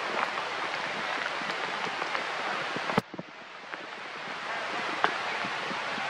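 Rain pattering on leaves and ground, an even hiss with scattered louder drop ticks. About three seconds in a sharp click comes, and the patter drops and sounds duller before building back.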